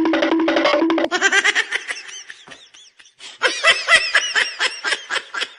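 High-pitched cartoon-voice laughter in quick pulsing bursts. One run fades out over the first couple of seconds, and a second run starts after a short pause about three seconds in.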